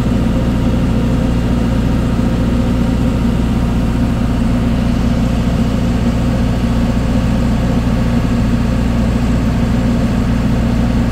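Ship's engine running steadily: a deep, even hum that does not change.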